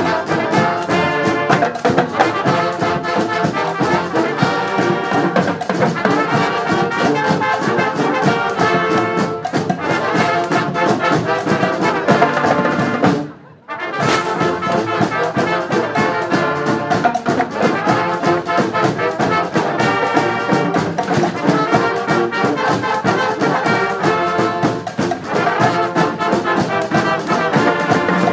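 Street brass band playing live, horns carrying the tune in full ensemble. The whole band cuts out for a moment about halfway through, then comes straight back in.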